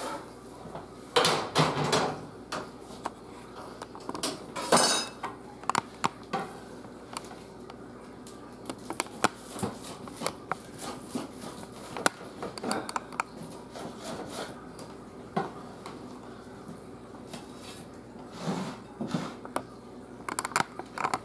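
Kitchen clatter of a pan set down and a knife and spatula knocking on a wooden cutting board and a plate, as a quesadilla is cut into slices. A string of irregular clicks and knocks, loudest in the first couple of seconds and again about five seconds in.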